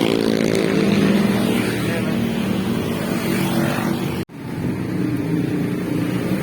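A vehicle engine running steadily while under way, heard from on board. The sound drops out sharply for a moment about four seconds in, then resumes.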